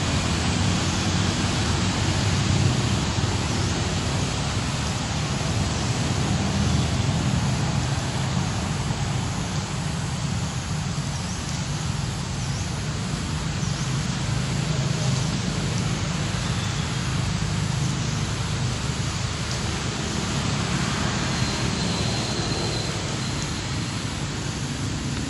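Steady low rumble with hiss, an even outdoor background noise that does not change, with no clear calls from the monkeys.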